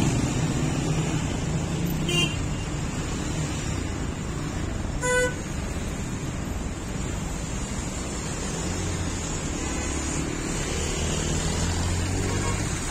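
Congested city traffic: a steady rumble of idling and slowly moving car and motorbike engines, with a short car horn toot about five seconds in. A nearby engine hums more loudly for a few seconds near the end.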